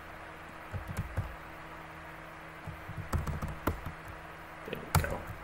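Keystrokes on a computer keyboard: a few taps about a second in, a quicker run of key clicks around the middle, and one louder key press near the end. A faint low steady hum runs underneath.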